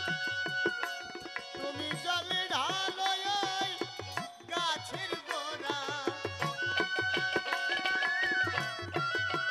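Instrumental passage of a Bengali Baul folk song: a quick hand-drum rhythm under an ornamented melody line that bends and wavers in pitch.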